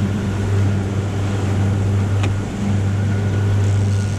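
Outboard motor running steadily as the boat trolls, a constant low hum, with the rush of water churning in its wake.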